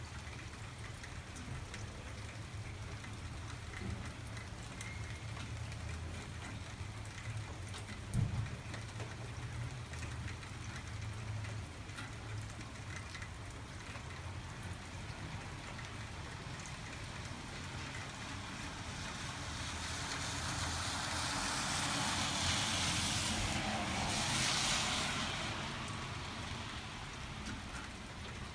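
Steady rain falling and dripping on a wet street. About two-thirds of the way through, a car's tyres hiss on the wet road, swelling to the loudest point and fading again; there is a single short knock about eight seconds in.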